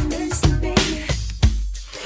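Funk-pop drum track: kick and snare hits about three times a second over a steady deep bass, with a sung or pitched line heard over it in the first half that drops away near the end.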